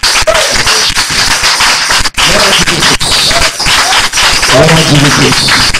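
Congregation clapping hard and fast, with voices calling out over the clapping now and then.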